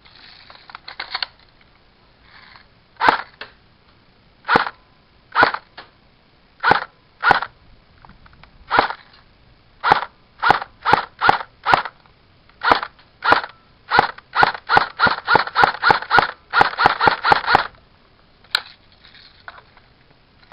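Airsoft gun firing BBs: sharp single shots a second or so apart, then quicker strings of shots, with a dense run near the end.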